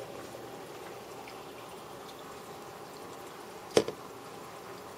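Aquarium water burbling steadily, with one sharp click and a fainter one right after, near the end.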